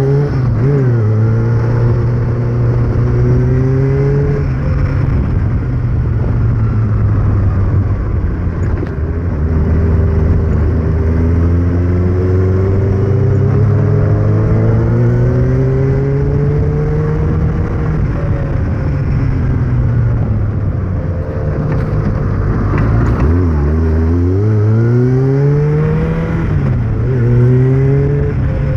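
Kawasaki ZR-7S motorcycle's air-cooled inline-four engine running, its revs rising and falling slowly several times, with a sudden dip and quick climb near the end.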